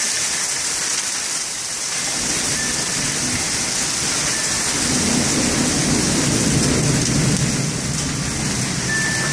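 Heavy thunderstorm rain pouring steadily, with a low rumble building from about two seconds in and strongest in the second half.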